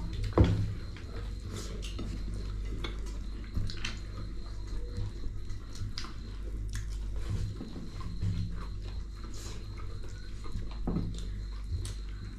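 A person eating close to the microphone: biting and chewing food with scattered wet smacking clicks, over a steady low hum. A sharp knock about half a second in is the loudest sound.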